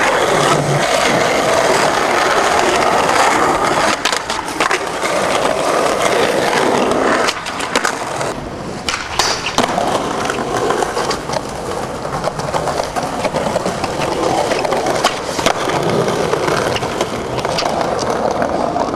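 Skateboard wheels rolling on concrete paving, with sharp clacks of the board popping and landing.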